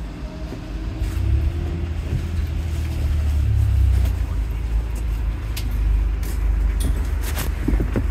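Cabin sound of a London bus under way: a low rumble of the drivetrain and road grows about a second in and holds steady. A faint whine from the electric drive fades out over the first couple of seconds. A few knocks and clicks from the bus interior come through the rumble.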